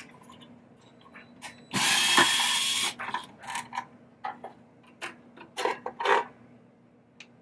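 Powered screwdriver running for about a second, backing out a screw holding down the power supply board, followed by scattered clicks and knocks of the screw and tool being handled.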